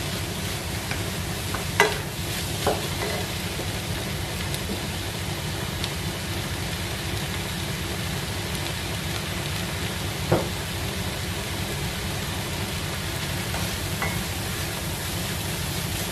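Diced vegetables and egg sizzling steadily in a non-stick frying pan as they are stir-fried with a wooden spatula. A few knocks of the spatula against the pan come near the start and one louder knock about ten seconds in.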